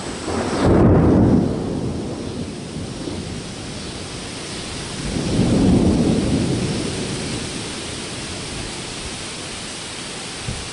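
Thunder rumbling twice, first about a second in and again about five seconds in, over the steady hiss of falling rain.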